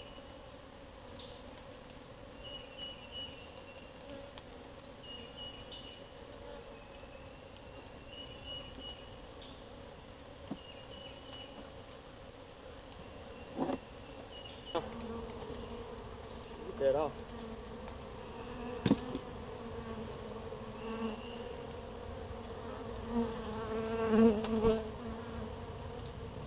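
Honey bees buzzing around opened hives in a steady hum, growing louder toward the end as more bees fly close. The bees are agitated by the disturbance. A few sharp knocks come in the second half, and a short high chirp repeats every second or two early on.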